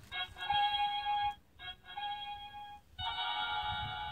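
Electronic sound module of a children's push-button sound book playing short, tinny synthesized jingles through its small built-in speaker. Three clips play one after another, each about a second long with short gaps between, as buttons are pressed.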